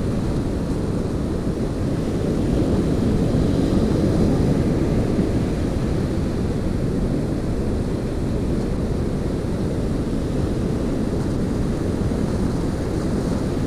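Steady low rumble of wind buffeting the camera microphone, with surf breaking on the beach underneath.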